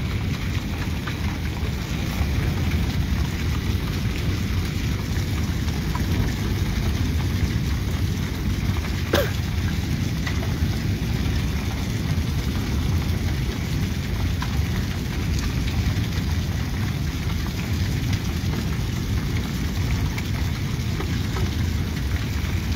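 Rain falling steadily in a thunderstorm, a constant unbroken rush, with a single sharp click about nine seconds in.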